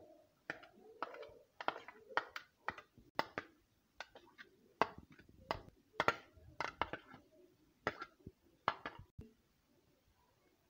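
A metal spoon knocking and scraping against a clear plastic container as chopped tomato, onion and green chilli are pushed out into a bowl of yogurt. The sharp, irregular clicks come about twice a second and stop about nine seconds in.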